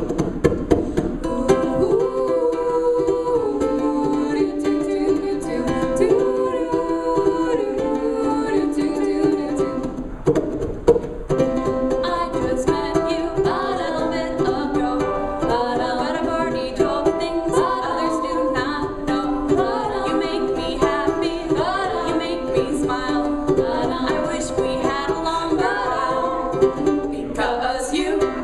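A song with singing over strummed plucked strings.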